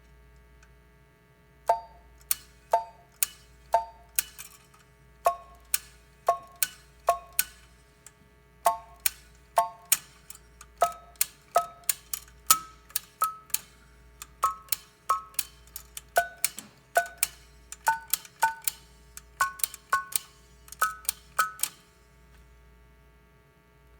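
Buttons of a prototype Western Electric ten-button push-button telephone being pressed one after another, heard through a loudspeaker. Each press is a sharp click with a brief, weak tone, and the pitch changes from button to button, with the same button often pressed two or three times in a row. The tone is very weak: it is not known whether a part has failed or whether this is how the phone worked.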